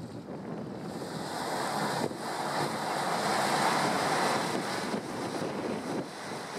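Rushing, churning water from a river cruise ship's propeller wash as it reverses, mixed with wind on the microphone. It swells about a second in and is loudest near the middle.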